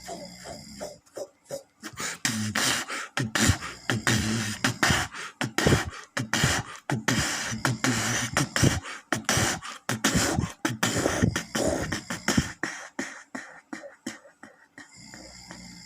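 Vocal beatboxing: rapid mouth-made clicks, kicks and snares improvised over a man's deep snoring. One long rasping snore comes near the end.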